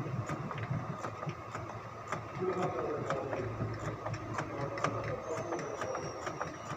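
Ford Expedition V8 idling, with a steady run of evenly spaced ticks.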